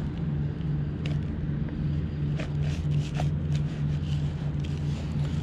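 A steady low mechanical hum, like an engine running, with a few faint short clicks over it.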